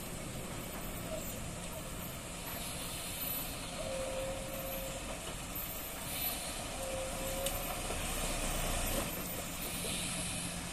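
Heavy loaded diesel lorry's engine running as it creeps slowly around a hairpin bend, with short hisses of air brakes. Two brief steady tones sound, about four and seven seconds in.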